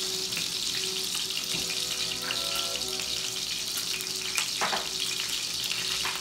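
Beef burger patties sizzling in hot grease in a cast-iron skillet, a steady hiss with fine crackles, the cheese slices melting on top as they finish cooking.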